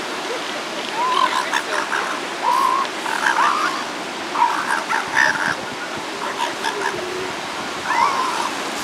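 Northern elephant seal pups calling: about six short yelping calls, some bending up in pitch, over the steady noise of surf.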